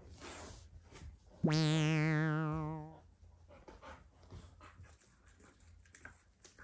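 A synthesized sound effect: one wavering tone that starts sharply about a second and a half in, holds for about a second and a half, then fades out. Faint dog sounds before and after it.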